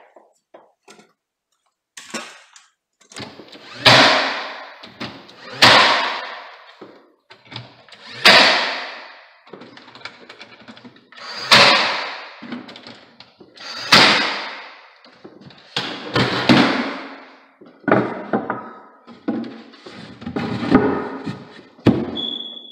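Cordless brad nailer driving 3/4-inch fine nails into a glued stair riser: about seven sharp shots two to three seconds apart, each dying away over about a second.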